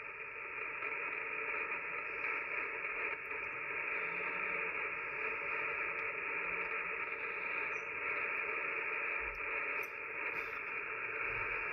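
Steady hiss of band noise from a Yaesu FT-One HF transceiver's receiver on the 40 m band, heard between voice transmissions while no station is talking. The hiss is narrow and telephone-like.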